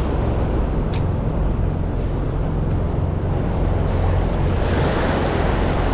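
Wind buffeting the microphone over the steady wash of ocean surf, with a wave rushing in louder near the end. A single sharp click about a second in.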